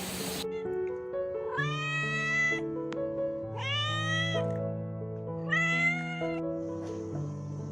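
A domestic cat meowing three times, each meow about a second long and rising in pitch at its start, over background music.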